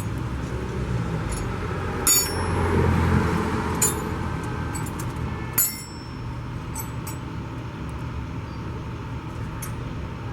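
Hand tools clinking against metal a few times, about two, four and five and a half seconds in, over a steady low background rumble that swells briefly between two and three and a half seconds in.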